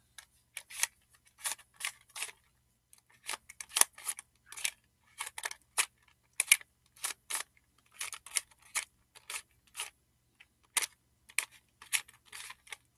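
Plastic barrel cube (a Rubik's-type 3x3 shape mod) being turned by hand: irregular sharp clicks and clacks of the layers, a few turns a second with short pauses. The cube is new and not yet broken in, so it turns stiffly and sounds clanky.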